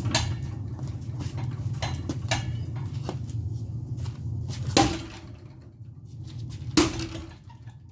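Crowbar striking a ceiling fan: a few light knocks, then two hard metal hits about two seconds apart, each with a short ring.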